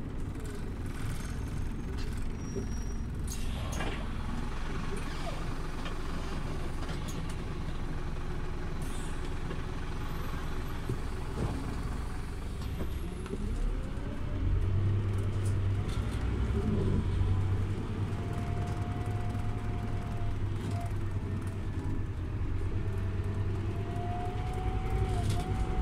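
Scania OmniLink city bus heard from inside while riding: a steady diesel engine drone with road noise. The engine hum grows louder about halfway through as the bus pulls harder, with a faint rising whine, and there are a few short hisses.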